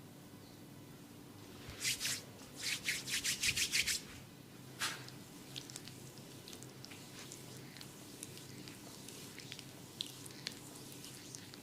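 A quick run of about ten close, scratchy rubbing strokes at a person's ear over two seconds, then one more stroke, followed by faint crackling ticks: ASMR ear massage or ear cleaning.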